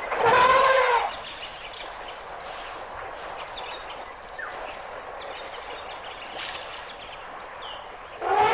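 African elephant trumpeting: one loud call about a second long that rises and falls in pitch, then a quieter outdoor background with a couple of faint bird chirps, and another loud trumpet starting near the end.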